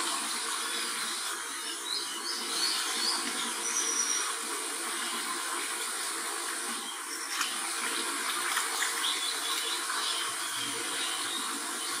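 Steady rush of running water, with a few faint high chirps over it and a short high whistle about four seconds in.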